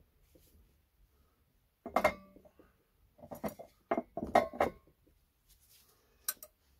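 Kitchenware clinking and knocking: one knock with a brief ring about two seconds in, then a quick run of knocks, and a last one near the end.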